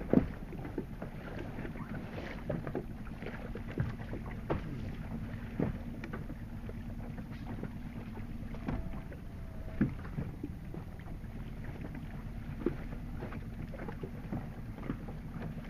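Water lapping and slapping against the hull of a small boat in a light chop, with irregular sharp knocks, the loudest near the start and around the middle, over a faint steady low hum and wind on the microphone.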